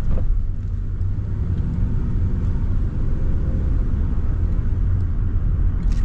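A car driving, heard from inside the cabin: a steady low rumble of road and engine noise.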